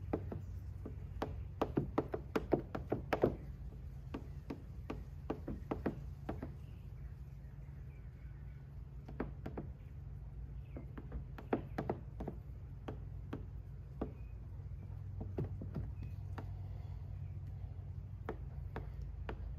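Irregular light taps and clicks from a hard plastic squeegee and fingers working over wet protection film on a car headlight, squeezing the water out; they come quickly for the first few seconds, then sparser, over a steady low hum.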